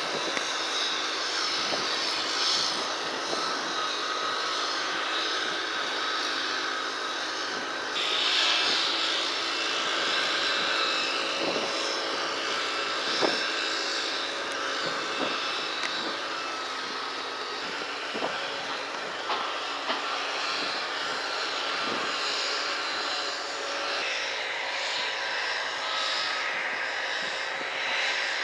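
Steady machinery drone with a few held tones, running on without a break, with scattered light knocks through it, the sharpest about halfway.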